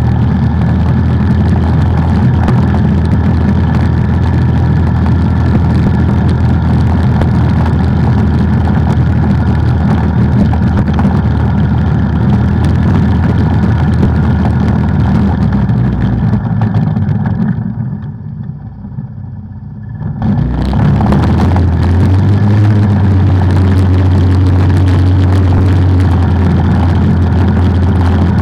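Off-road ATV engine running loudly and steadily while riding. About two thirds of the way through, the sound briefly falls away, then picks up again as a steadier low hum.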